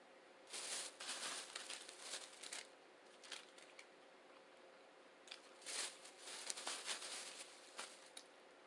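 Crunching from bites of a crispy fried veggie egg roll, close to the microphone: two spells of crackly crunching, the second starting a little past the middle.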